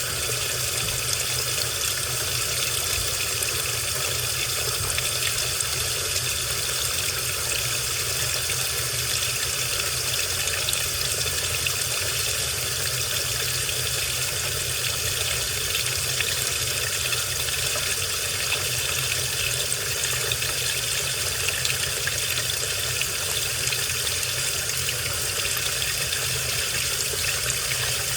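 Washing machine running with water rushing and splashing inside the drum, steady throughout, over a low hum.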